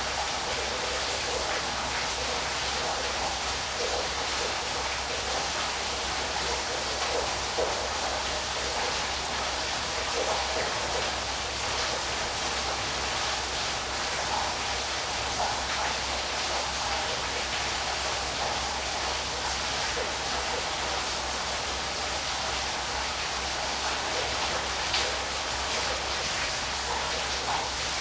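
Waterfall: a steady rush of falling, splashing water, with a low rumble underneath.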